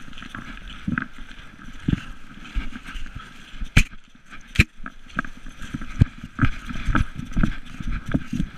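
Knocking and rubbing from a GoPro camera jostling on an Irish wolfhound's collar as the dog moves along a gravel path: irregular low thumps, with two sharp knocks about four seconds in.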